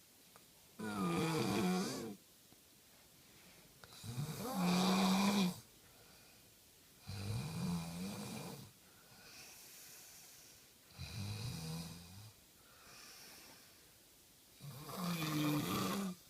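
Snoring: five loud snores about three and a half seconds apart, each lasting about a second and a half, with fainter breaths in between.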